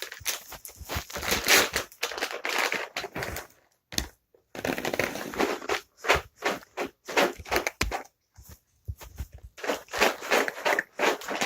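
Dry cat treats rattling as their container is shaken in bursts of rapid shakes, with short pauses about four and eight seconds in.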